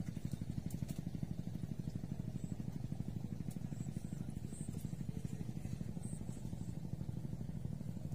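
A small engine running steadily with an even, fast putt-putt pulse.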